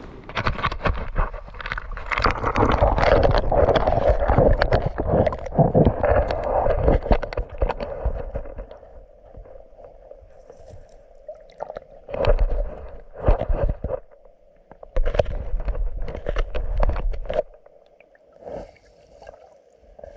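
Water splashing and gurgling in irregular bursts, dense for the first eight or nine seconds, then in a few separate short bouts before it fades near the end.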